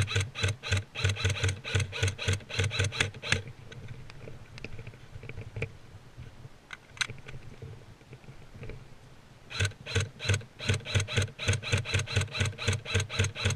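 Airsoft gun firing rapidly, about six or seven shots a second, each shot a sharp click with a low thump. One long string runs for about three and a half seconds, a couple of single shots follow, and a second long string starts about ten seconds in.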